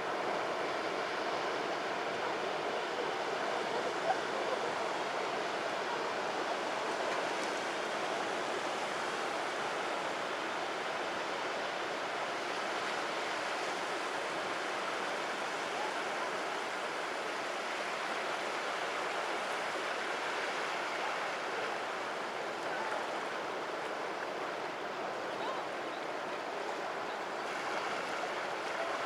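Sea surf washing steadily over a rocky shore, a continuous rushing wash that swells and eases gently, with one brief tap about four seconds in.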